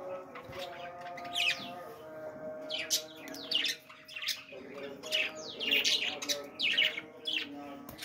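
Budgerigars in an aviary chirping: a run of short, quickly falling chirps, several overlapping at once, over steady held tones.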